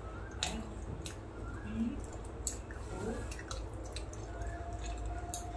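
A person eating by hand: wet, squishy chewing and mouth smacks as rice is mixed and eaten, with a few sharp clicks.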